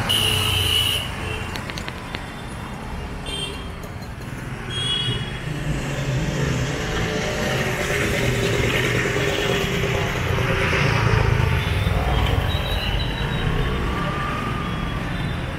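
City road traffic: vehicles running in a steady low rumble, with a few brief higher tones here and there.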